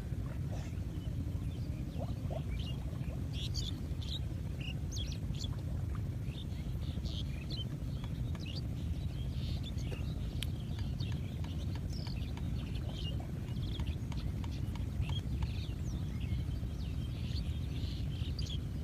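Many small birds chirping in quick, short calls over a steady low rumble.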